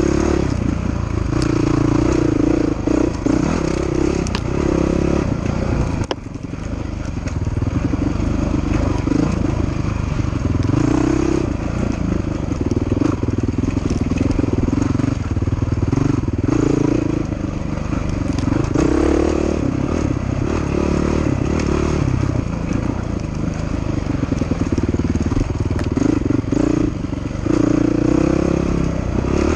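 Dirt bike engine revving up and easing off again and again as the throttle is worked through tight trail riding, dropping away briefly about six seconds in. Scattered knocks and clatter ride over the engine.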